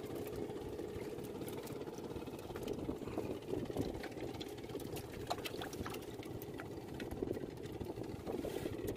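A small engine running at a steady drone, with scattered light crackles as twigs and small fish are picked over by hand on a net.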